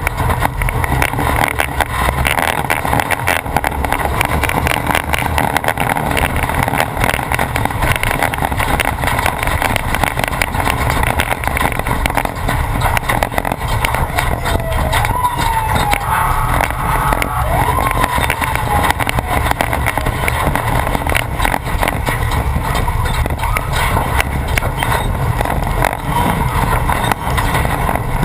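Off-road race truck driving hard over rough desert track: the engine runs loud under a constant clatter and rattle from the truck jolting over bumps. A brief wavering whine rises and falls about halfway through.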